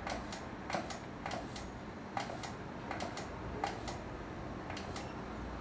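Faint, irregular clicks and ticks, about a dozen of them spread unevenly, over low background noise.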